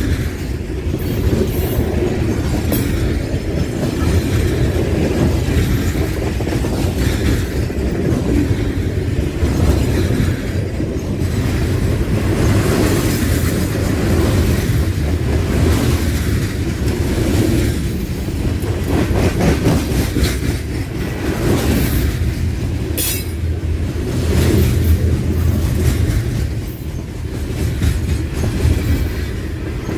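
Freight train of coal gondola cars rolling past close by: a steady low rumble with the clatter of steel wheels on the rails.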